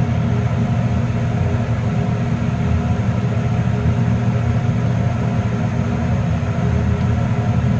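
Elevator car travelling upward, heard from inside the cab: a steady, loud low hum and rumble that does not change.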